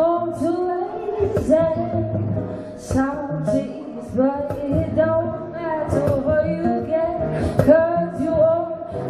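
A woman singing a song live over two strummed acoustic guitars.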